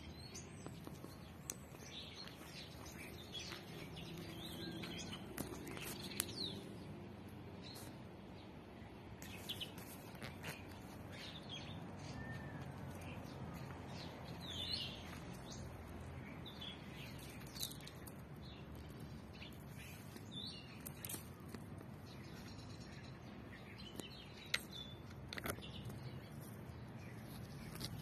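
Birds chirping now and then in short, high calls over a low outdoor background, with a few sharp clicks or taps, the loudest about six seconds and about twenty-four seconds in.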